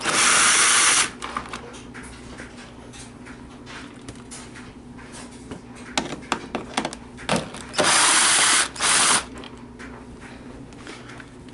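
Electric drill with a 10mm socket spinning out the bolts of a car's rear tail lens: a run of about a second at the start, then two more short runs about eight seconds in, with clicks and knocks of handling between.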